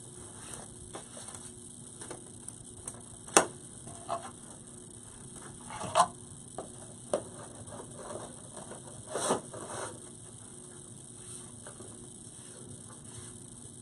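Ribbon crinkling and rustling in the hands as the loops of a small bow are formed. There are scattered sharp crackles, the loudest about three and a half and six seconds in, with a short cluster near nine seconds.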